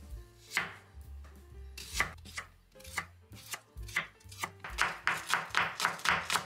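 A Victorinox chef's knife slicing a scallion on an end-grain wooden cutting board, each cut ending in a knock of the blade on the wood. The cuts come one at a time at first, then speed up to a quick run of about four or five chops a second near the end.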